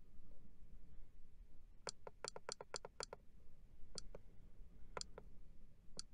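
Small plastic buttons on a trail camera clicking as its clock is set: a quick run of presses about two seconds in, then single presses roughly a second apart, each often followed by a softer click.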